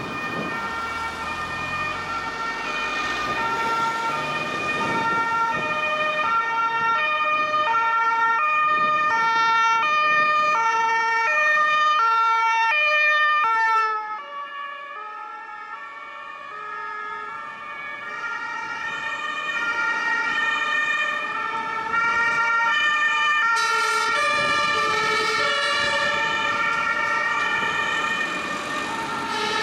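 German two-tone emergency sirens (Martinshorn), alternating a high and a low note. The first, from a police patrol car, grows louder, then drops in pitch and level as it passes about halfway through. The siren of a fire-service ambulance then builds up again, over traffic noise.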